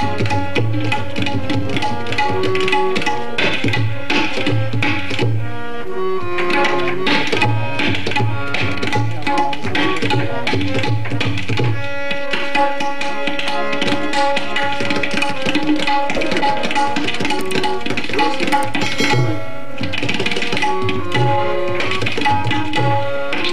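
Tabla solo in teentaal: fast strokes on the tabla pair with deep bass-drum notes recurring, over a harmonium playing a sustained stepwise melody.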